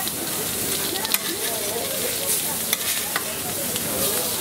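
Burgers sizzling on a hot griddle in a steady hiss, with a few sharp clicks of a utensil against the cooking surface.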